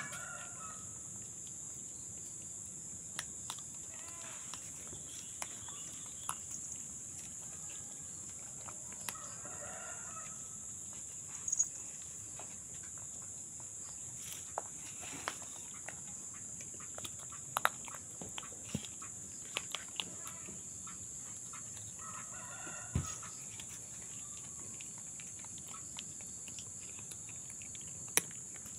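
Quiet background with a steady high hiss, scattered small clicks and crunches as baby macaques and cats eat dry cat kibble, and a few faint clucking calls in the background.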